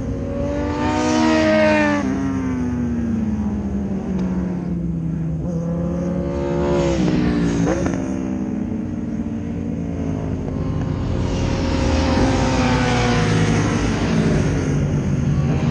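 Several track motorcycles passing at high speed one after another, about four passes, each engine note sweeping down in pitch as it goes by, with a steady engine rumble in between.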